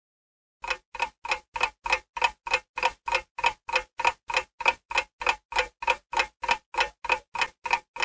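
Clock ticking: an even, fast tick-tock of short clicks, about three a second, starting about half a second in.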